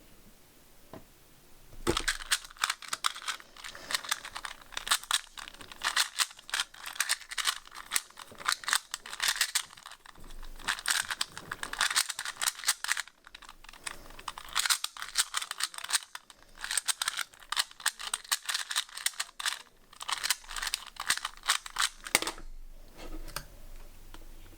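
2x2 Rubik's cube being turned rapidly by hand in a speed solve: a dense run of quick plastic clicks and clacks, with a few short pauses, starting about two seconds in and stopping near the end.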